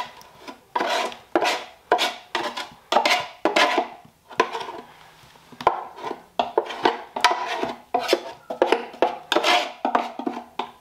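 Repeated metal-on-metal scraping inside the steel oil pan of a 1937 Ford flathead V8 as the sludge is cleared out, in quick runs of short strokes about two or three a second, with a short pause midway.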